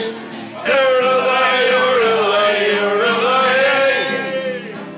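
After a brief pause, a man sings one long, drawn-out line of an Irish folk song, the pitch wavering. Two acoustic guitars play along underneath.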